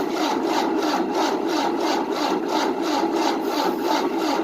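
1988 Tennant 255 Series II sweeper's engine cranking on its starter, a steady rhythmic chug of about four to five strokes a second, turning over without catching. It is a no-start, even with starting fluid and a new fuel line.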